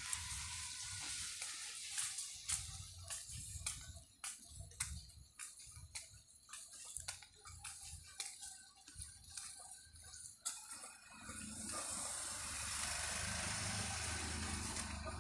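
Rain pattering on an umbrella held overhead: many irregular light taps over a steady hiss. About eleven seconds in it gives way to a steadier, fuller rushing noise with a low hum underneath.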